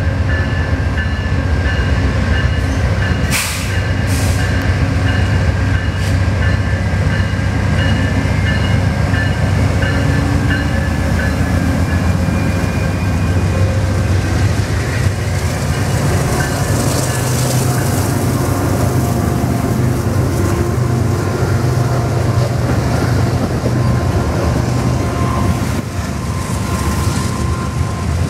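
A VIA Rail passenger train led by a GE P42DC diesel locomotive rolls past, with the locomotive's V16 diesel running and then the stainless and blue passenger cars following on the rails. It makes a steady low rumble throughout, with a couple of sharp clicks about three and a half seconds in.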